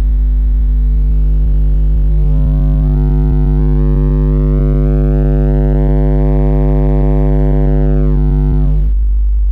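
Car subwoofer in a threaded-rod-braced enclosure playing a 50 Hz sine-wave test tone at full volume for a sound-pressure (SPL) reading: a loud, steady, deep hum. A stack of overtones above it gets stronger from about two seconds in until near the end.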